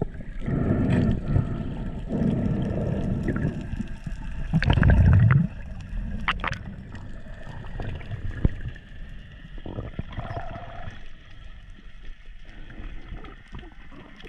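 Underwater water noise against the camera as a freediver dives: low rushing and gurgling in swells, loudest about five seconds in, then quieter with scattered sharp clicks.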